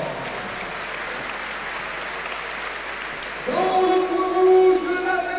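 Arena crowd cheering and applauding after a fighter's name is called. About three and a half seconds in, the ring announcer's amplified voice comes in over the PA with a long, drawn-out held call.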